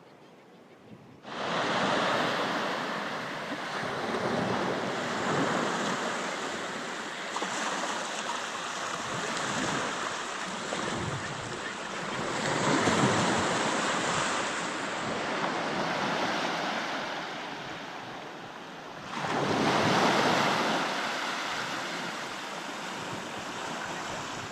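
Ocean waves surging and washing in, starting suddenly about a second in, with two louder surges, one around the middle and one near the end.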